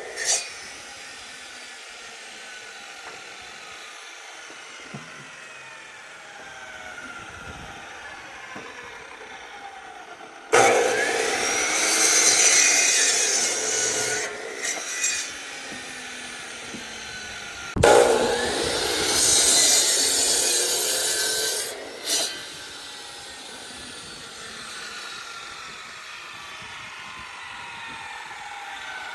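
Wood-Mizer band sawmill sawing pallet stock. A steady quieter running sound is broken by two loud stretches of three to four seconds each, one starting abruptly about a third of the way through and the other about two thirds through.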